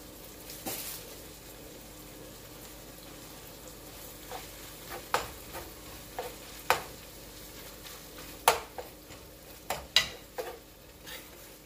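Ground beef sizzling as it browns in a pan, stirred with a utensil that knocks sharply against the pan several times.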